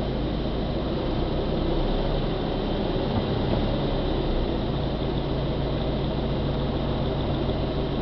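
A vehicle's engine running steadily: an even low rumble with a steady hum.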